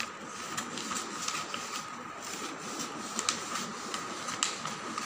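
Brown pattern paper being cut with scissors and handled: rustling with scattered small clicks of the blades, over a faint steady whine.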